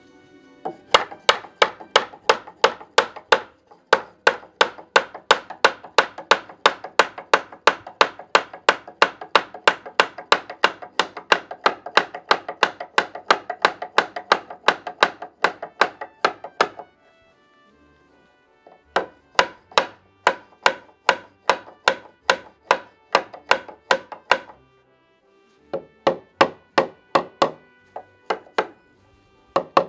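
Hammer striking wood in quick, steady runs of about three blows a second. There is a long run, a pause of about two seconds, then shorter runs with brief breaks near the end.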